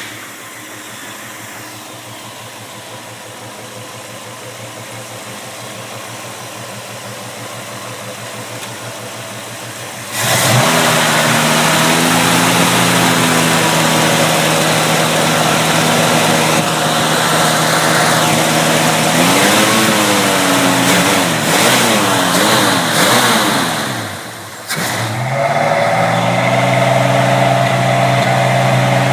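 A 1968 Ford Mustang GT's 289 V8 running at idle after starting. The engine note jumps suddenly louder about ten seconds in, and a few quick throttle blips about two-thirds of the way through make it rise and fall before it settles back to a steady idle.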